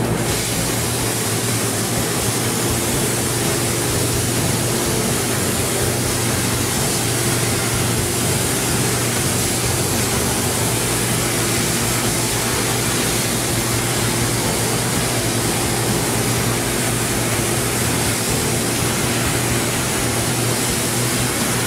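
CNC thermal cutting torch cutting through steel sheet: a steady, loud hiss with a low hum underneath, starting right at the beginning and holding even throughout.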